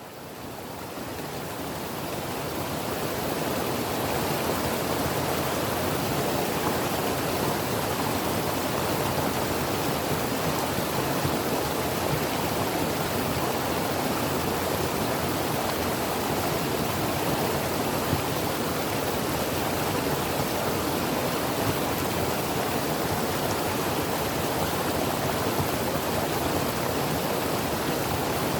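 Creek water running steadily over rocks, a continuous even rushing that fades in over the first few seconds and then holds level.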